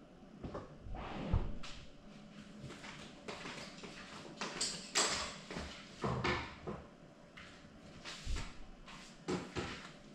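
Irregular knocks, clatters and rustles, like doors or cupboards being handled, over a faint steady hum.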